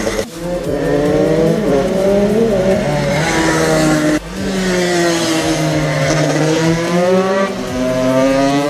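Husqvarna 125 two-stroke engine with an HGS exhaust, revving up and down in pitch, with two sudden brief drops in sound, one right at the start and one about four seconds in.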